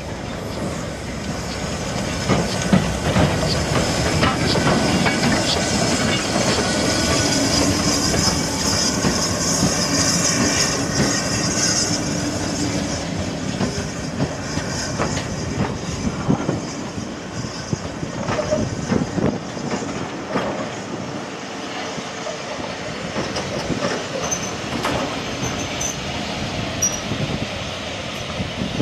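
Ivatt 2MT 2-6-0 steam locomotive and its train of coaches rolling slowly through the station, wheels clattering over the rail joints with some wheel squeal and hiss. It is loudest in the first half as the locomotive passes, then eases off as the coaches go by.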